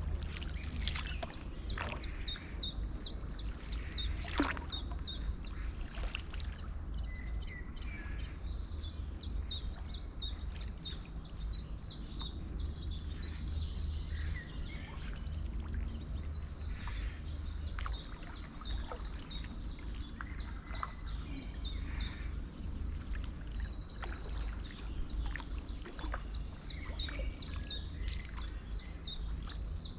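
A songbird singing long runs of rapid, high, repeated chirping notes, broken by short pauses, over a steady low rumble.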